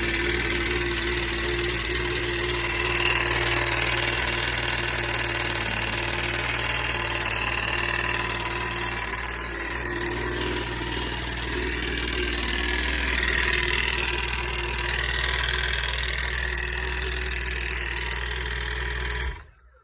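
2009 Yamaha FX Nytro snowmobile's three-cylinder four-stroke engine running with a knock from a failed counterbalance shaft bearing on the stator side. It is shut off near the end and the sound cuts off suddenly.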